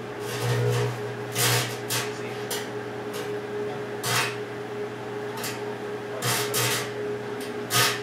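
Vintage Quasar microwave oven running with its steady electrical hum, broken by about eight short crackling bursts as the contents spark and burn inside the cavity. The biggest bursts come about halfway in and near the end.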